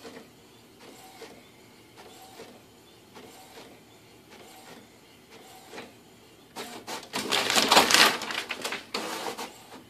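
Inkjet printer printing, its print head making a pass roughly once a second as the page feeds out. About two-thirds of the way in, a loud rustling clatter lasting a few seconds.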